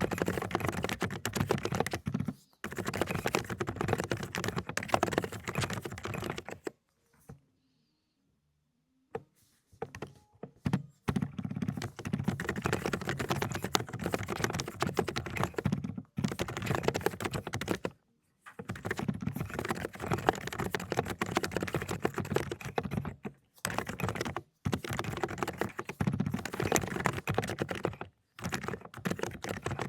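Fast typing on a 독거미 (Aula "Tarantula") mechanical keyboard fitted with low-noise cotton-candy switches: dense runs of key clacks broken by short pauses, with a longer silent gap about seven seconds in.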